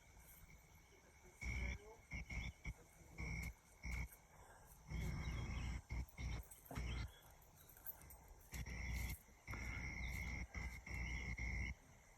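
Faint outdoor ambience: insects trilling steadily on one high pitch, heard in stretches, with wind rumbling on the microphone that cuts in and out.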